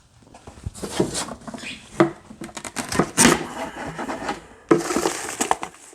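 Hands rummaging through a box of small guitar parts and odds and ends: irregular clicks, knocks and rustling as items are moved about.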